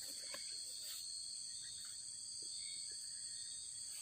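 Steady chorus of night insects, a continuous high-pitched trill.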